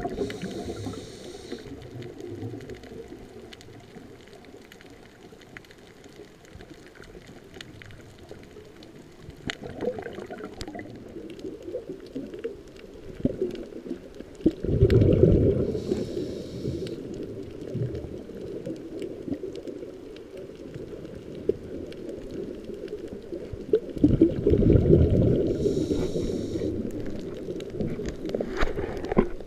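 Scuba diver breathing through a regulator, heard underwater: loud bubbling exhalations twice, about fifteen and twenty-five seconds in, each followed by a short high hiss of the regulator, over a steady low underwater rumble.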